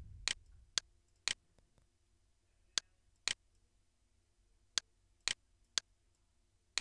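Computer mouse clicking: about eight short, sharp clicks, several of them about half a second apart, with long gaps between groups.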